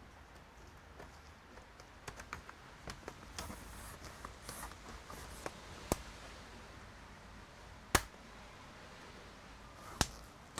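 Scattered small clicks and taps of a laptop and tools being handled during disassembly, with two sharper clicks about eight and ten seconds in.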